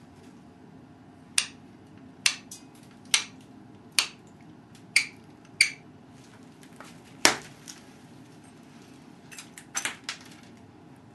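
Pressure flaking a stone Dalton point: sharp snaps as flakes detach from the edge under a handheld pressure flaker. There are about seven single snaps roughly a second apart, the loudest a little past the middle, then a quick run of several near the end.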